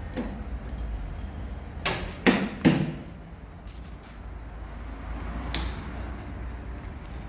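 Sharp knocks from the plastic headlight cowl of a Yamaha MT-07 being pushed and seated onto the front of the bike: three in quick succession about two seconds in, then a lighter click a few seconds later, over a low steady hum.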